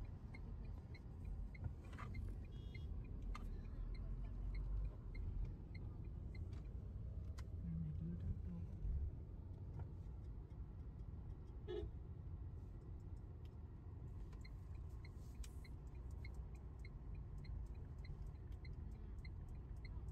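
Car cabin road noise from a car driving at low speed: a steady low rumble. A quick, regular light ticking at a few ticks a second runs over the first few seconds and again near the end.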